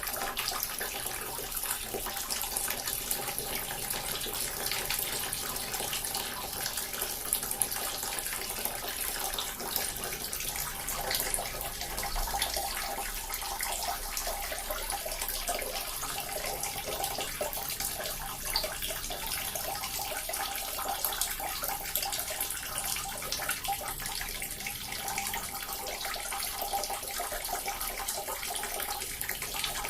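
Small water fountain splashing and trickling steadily, a constant bright patter of falling water.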